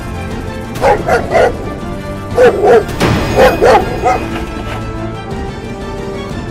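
A dog barking: about eight short barks in three quick clusters between one and four seconds in, over background music that runs throughout.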